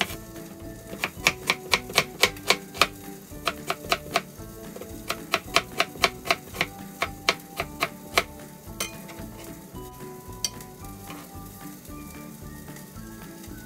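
Food sizzling in a pan while a utensil clacks against the pan in quick runs of about four strikes a second, with a short pause about three seconds in. The strikes stop about eight seconds in, leaving the sizzle and soft background music.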